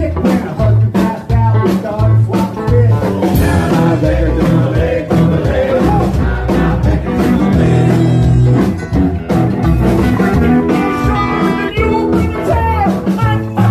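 Live rock band playing loud, with electric guitar and drums, and a voice singing over it in the second half.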